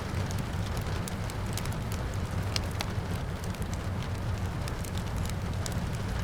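Wood fire crackling in a fireplace, with frequent sharp pops and snaps, over a steady rain noise and a low rumble.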